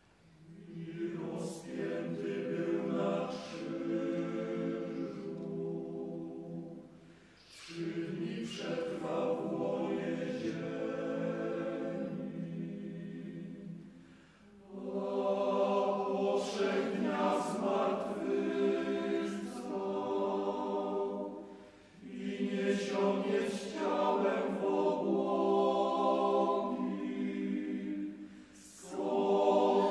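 Mixed choir of women's and men's voices singing in slow phrases of several seconds each, with short breaks for breath between phrases.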